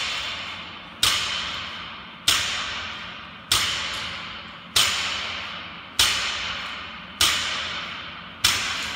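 Gym weights slamming onto the floor in a steady rhythm, one hit about every 1.2 seconds, eight in all. Each hit is sharp and rings on through the hall before the next.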